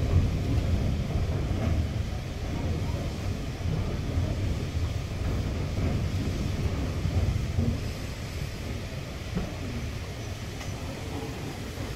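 Wind rumbling on the microphone, uneven and heaviest in the low range, easing slightly about two-thirds of the way through, with faint voices behind it.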